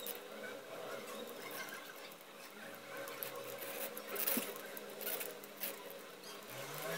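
Handling noise of thin wire brushes being bent and pressed against the small plastic frame of a homemade DC motor: light rubbing and scattered small clicks and taps, with a sharper click a little past the middle.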